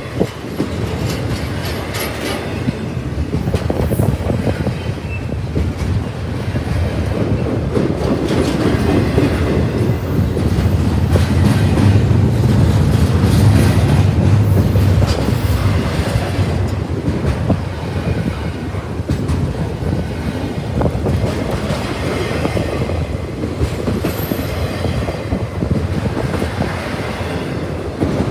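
Double-stack intermodal freight cars rolling past on steel wheels: a continuous heavy rumble with scattered clicks and clacks from the wheels over the rail, growing louder toward the middle and easing off a little near the end.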